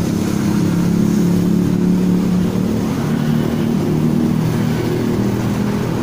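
An engine running at a steady speed, its hum wavering slightly in pitch.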